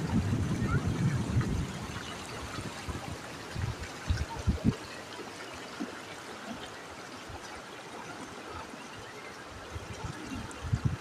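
Waterfall: a steady rush of falling water. Low rumbling bursts come in the first second or two, and a few short low thumps come around four to five seconds in and again near the end.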